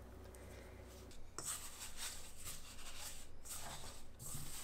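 Hands kneading crumbly tapioca-starch dough in a stainless steel bowl: an irregular rustling and scraping of dough and fingers against the bowl, starting about a second in.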